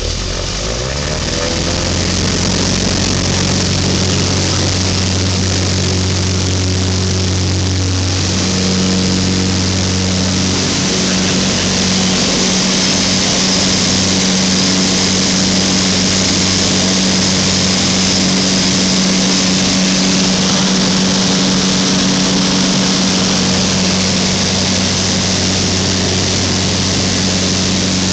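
Thruster T600N microlight's engine and propeller opening up for takeoff, rising in pitch over the first couple of seconds, then running steadily at full power through the takeoff roll and climb-out, with a steady hiss of rushing air.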